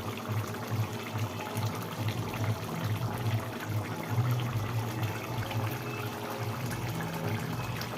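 Chicken kosha curry bubbling and sizzling in the pan as it cooks, a steady fine crackle over a low, unevenly pulsing hum.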